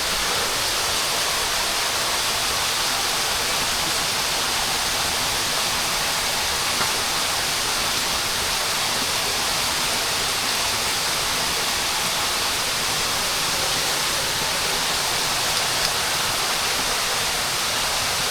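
Steady rush of running water, an even hiss with no rhythm or change.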